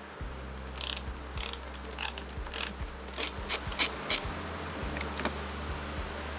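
Hand ratchet clicking in short, uneven strokes while backing out small 5mm Allen screws, about a dozen sharp clicks in a row that stop about four seconds in, over a faint steady low hum.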